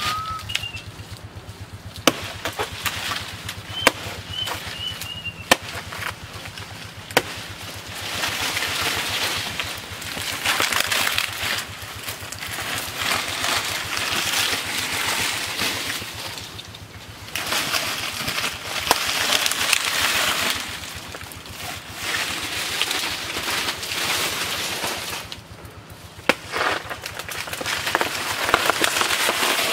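Machete chopping into a banana plant: several sharp knocks in the first few seconds, then long spells of dry banana leaves rustling as the plant is cut and pulled down. A bird chirps briefly near the start.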